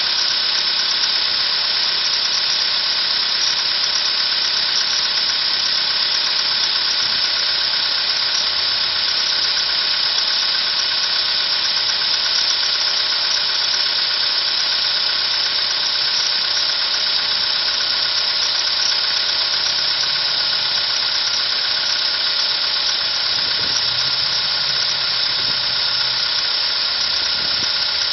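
Car engine idling steadily, with a fine even ticking. In the cold of about minus ten degrees, the engine knock the owner had been hearing is gone.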